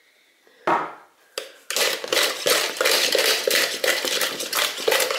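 Wire hand whisk beating stiff egg-white foam with an egg yolk in a bowl, the wires striking the bowl. Two single strokes come about a second in, then fast, steady whisking at about four or five strokes a second.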